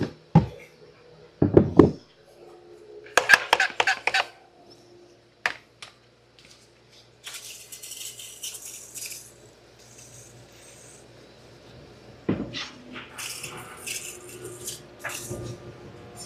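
Metal tools and parts clinking, knocking and rattling, with a cluster of quick rattling clicks about three seconds in. About seven seconds in comes a hiss of aerosol brake cleaner sprayed for about two seconds.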